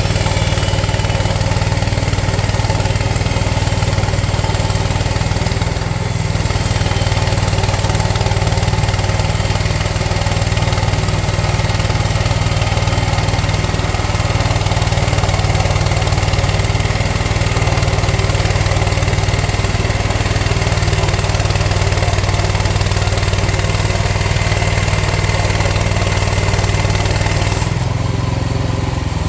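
Gas engine of a Frontier portable bandsaw sawmill running steadily under load while the band blade saws through a log. About a second before the end the high hiss drops away and the engine note changes.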